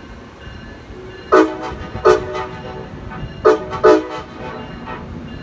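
Locomotive K5LA five-chime air horn giving four short toots in two pairs as the train departs, a brief honk rather than a long blast.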